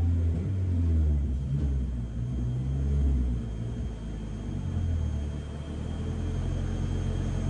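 Mazda RX-7's turbocharged, bridgeported rotary engine idling on the dyno with a lumpy, uneven note. Its pitch wanders up and down, then settles steadier about six seconds in.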